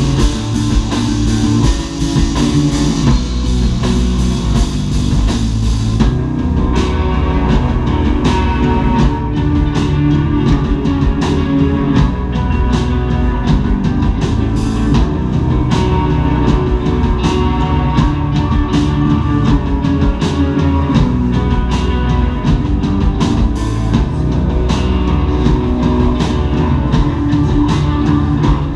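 Live rock band playing loudly: electric guitars, bass guitar and drum kit together. About six seconds in the bright cymbal wash drops away, leaving sharp, regular drum hits under the guitars.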